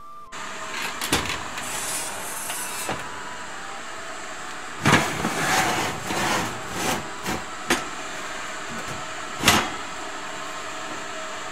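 Several knocks and clatters over a steady hiss, with the loudest around five seconds in and again near nine and a half seconds: handling noise around an open oven and the towel-covered dough bowl on its wire rack.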